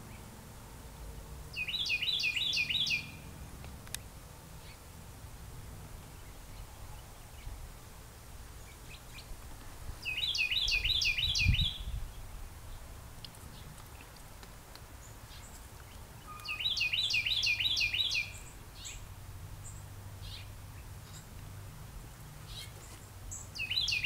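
A songbird singing a short rapid phrase of repeated chirps, about a second and a half long, three times at intervals of about seven seconds, with a fourth starting at the very end. A brief low bump sounds about halfway through.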